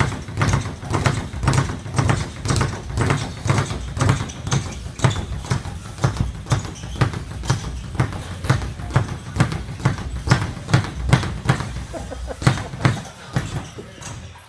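Speed bag being punched in a fast, steady rhythm, the bag rapping against its rebound platform several times a second. The rhythm thins out and stops shortly before the end.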